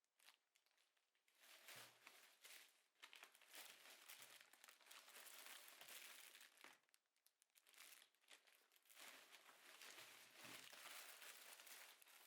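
Quiet crinkling and rustling in irregular bursts, like something being handled and crumpled.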